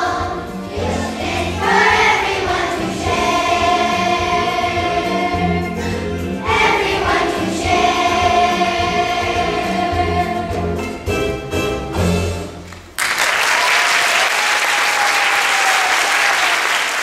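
Children's choir singing over an instrumental accompaniment with a steady bass beat; the song ends in a few short clipped hits about eleven to twelve seconds in. About a second later the audience breaks into sudden applause, which continues to the end.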